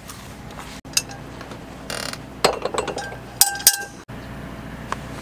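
Pots and utensils clinking during camp cooking: a few separate knocks, one ringing briefly a little past halfway.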